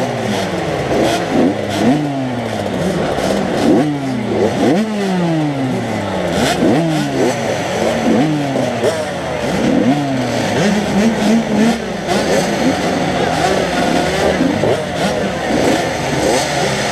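Motocross bikes racing, their engines revving hard and dropping back over and over, several at once. Each rev is a quick rise in pitch followed by a slower fall.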